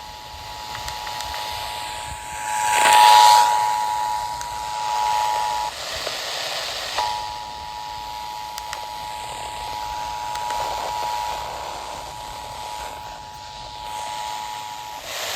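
Emergency Alert System attention signal, the steady two-tone alarm (853 and 960 Hz together), played over an FM radio with static hiss. The tone cuts out for about a second around six seconds in, then resumes until near the end. A loud surge of hiss comes about three seconds in.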